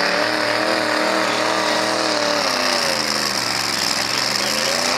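Engine of a big lifted off-road truck running hard at high revs under load. Its pitch wavers, sags about three seconds in, then climbs again.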